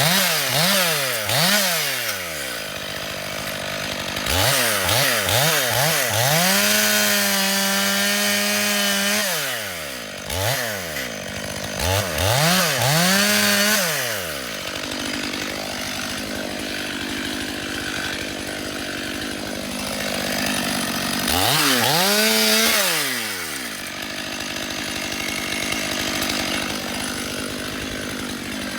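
Petrol chainsaw engine revved in quick throttle blips, then held at high revs for a few seconds, blipped again and dropped to idle. Near the end it revs up once more for about two seconds and falls back to idle.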